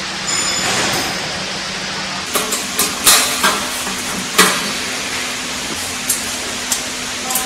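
Stainless steel sheet-metal cover panels being handled and set onto a bucket elevator's casing: a short rustle of sheet metal, then a run of sharp knocks and clanks, loudest about three and four and a half seconds in. A steady low hum runs underneath.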